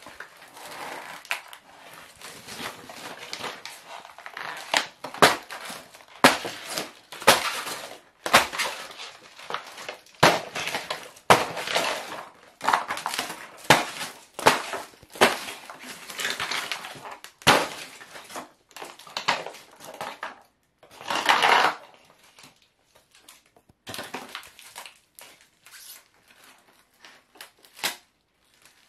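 A foam radio-controlled model aeroplane being stomped and crushed under stiletto heels: repeated irregular crunching, cracking and snapping of foam and plastic, with short pauses between stomps. There is a longer grinding crunch about three quarters of the way through, and the stomps come more sparsely near the end.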